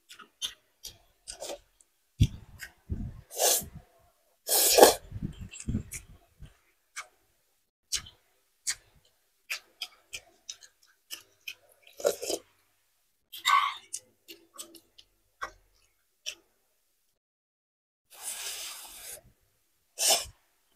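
Close-up eating sounds from a bowl of very spicy noodles: lip smacks, chewing and sips of broth from a spoon, with a loud sneeze-like burst about five seconds in, and a long slurp of noodles near the end.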